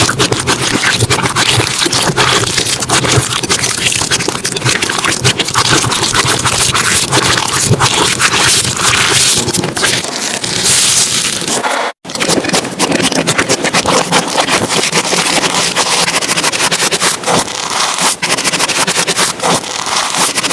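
Slime being squished and worked by hand: a dense run of small crackles, pops and squelches, with a brief gap about twelve seconds in.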